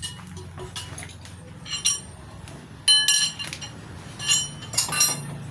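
Metal tools or parts clinking about four times, each with a short ringing tone, the loudest about three seconds in, over a steady low hum.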